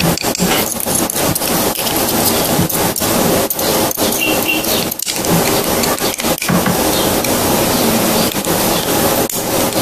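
Loud, dense crackling rustle with many small clicks: close handling noise of the pistol slide, barrel and guide rod assembly with its recoil spring as they are fitted together.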